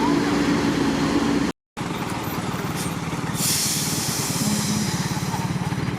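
Heavy diesel truck engine running steadily, broken by a brief cut in the sound about a second and a half in. A short burst of hiss follows about three and a half seconds in.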